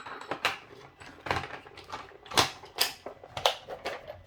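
Irregular clicks and clatter of small hard objects, such as tools and drill bits, being handled and set down on a workbench. The loudest knocks come about two and a half to three and a half seconds in.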